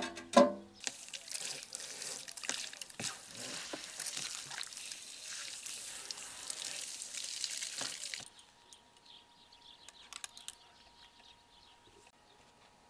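Water from a hose spray nozzle hissing and splashing onto a whole carp on a table as it is rinsed; the spray cuts off abruptly about eight seconds in. A couple of plucked string notes sound at the very start.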